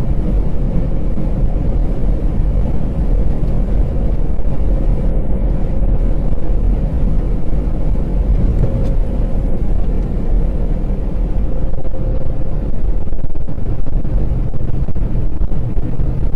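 Steady low rumble of a moving vehicle's engine and road noise, with a faint steady hum above it.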